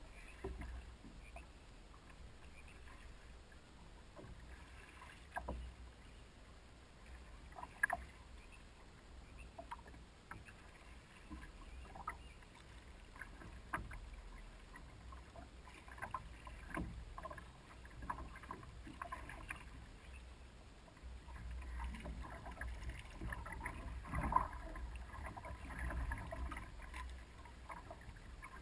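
Canoe paddle working the water beside a big canoe: irregular splashes, drips and gurgles from the blade, with a few sharper taps, at no steady rhythm.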